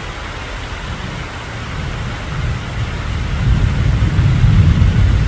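Steady rushing noise of floodwater, with a low rumble that builds from about halfway through and is loudest near the end.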